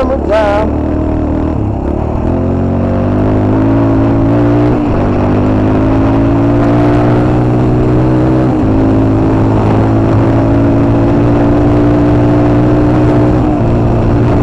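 Motorcycle engine running steadily under way at a moderate pace, its pitch creeping slowly upward, with two brief dips about five and nine seconds in.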